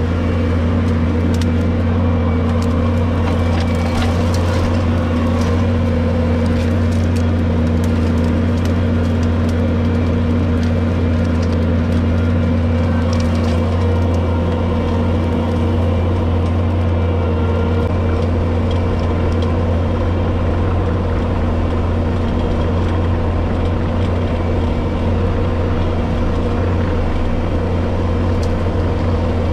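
66-inch Brush Cat rotary brush mower running steadily under power, a constant low machine hum, with sharp cracking and splintering as brush and woody stems are cut, most of it in the first half.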